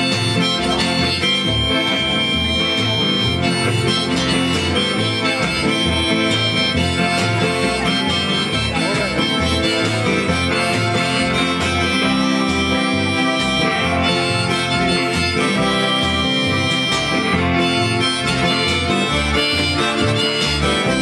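Instrumental passage by a live trio: a Roland accordion playing the reedy melody line over strummed acoustic guitar and electric guitar, with a steady beat.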